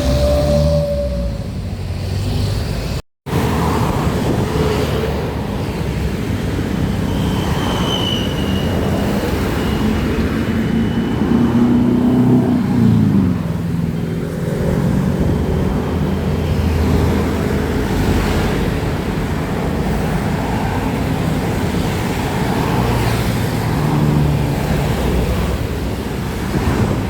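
Roadside traffic: steady engine and tyre noise from passing vehicles. About halfway through, one engine's note swells and then drops in pitch. The sound cuts out completely for a moment about three seconds in.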